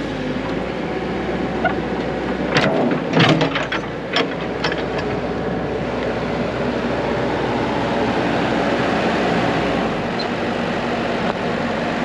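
Mini excavator's engine idling steadily, with a short cluster of sharp knocks and clicks about three to four seconds in.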